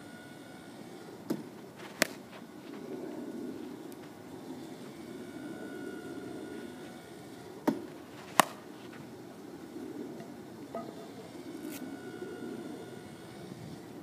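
Wooden baseball bat (Phoenix 1904 Big Knob) cracking sharply on a pitched ball twice, the second hit the loudest. Each crack comes just under a second after a lighter knock as the pitching machine sends the ball.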